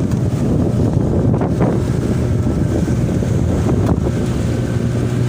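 A small fishing boat's engine running steadily, a low hum, with strong wind buffeting the microphone in stormy weather at sea.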